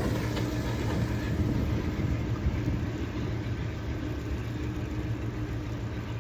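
Excursion train rumbling steadily, fading slowly as it moves away after passing.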